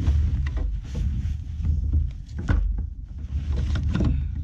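Wind buffeting the microphone as a steady low rumble, with a few short knocks and rustles of handling scattered through it.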